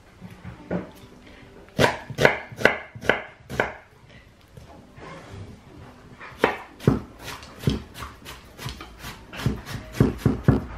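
Chef's knife dicing an onion on a thick wooden chopping board: a string of sharp knocks as the blade hits the wood, about five spaced chops a couple of seconds in, then a longer, quicker run of chops through the second half.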